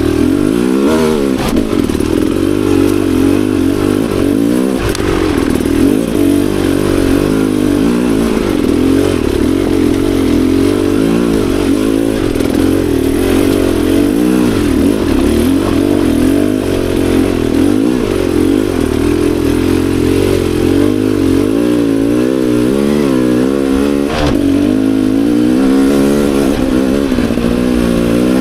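Beta Xtrainer 300 two-stroke dirt bike engine running under way, its revs rising and falling again and again with the throttle. Two sharp knocks stand out, one about five seconds in and one near the end.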